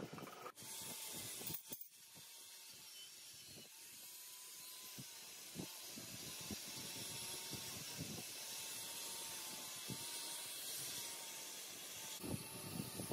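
Liquid poured in a steady stream onto a metal sprocket sitting in a plastic pan: a steady splashing hiss that slowly grows. About twelve seconds in it gives way to irregular clicks and knocks of handling.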